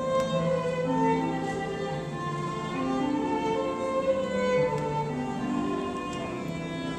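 Slow string music: a violin melody over a lower bowed line, its notes held about a second or more each.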